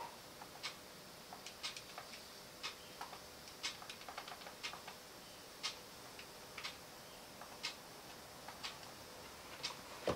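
Faint clock ticking once a second, with softer, irregular clicks of calculator keys being pressed between the ticks.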